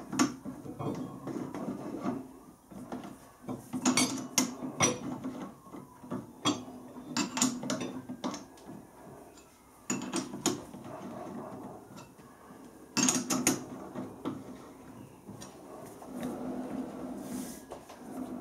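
Chuck key working the jaw screws of a four-jaw lathe chuck, clamping a steel tube: sharp metallic clinks as the key is seated and pulled up tight, every second or few seconds, with a low grating rattle as the screws turn and the chuck is rotated by hand.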